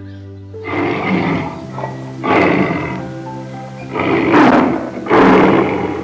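Background music with an animal's rasping calls over it, four in a row, each under a second long, the last two the loudest.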